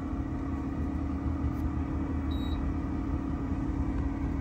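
2Good S20 air fryer oven running: its convection fan motor hums at one steady pitch over a low rumble.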